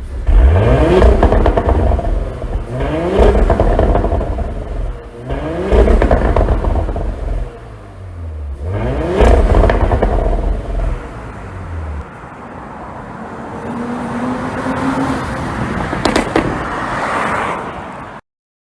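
Porsche Cayenne Coupe's 3.0-litre turbocharged V6 revved four times, each rev rising sharply and falling back, with exhaust pops and crackles on the overrun from an ECU pop-and-crackle tune. In the last third it drops back to a lower steady running, with a few more crackles near the end.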